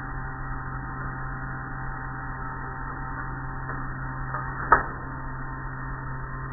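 Automatic car wash heard from inside the car: a steady low machinery hum with the wash of water and wet cloth strips over the glass, and one sharp knock about three-quarters of the way through.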